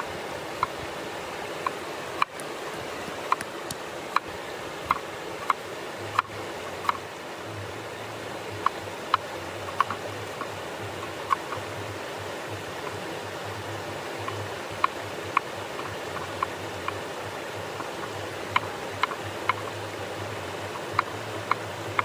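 Steel cleaver chopping a red onion on a wooden cutting board: irregular sharp knocks of the blade striking the board, about one a second, with a pause of a couple of seconds near the middle. A mountain stream rushes steadily underneath.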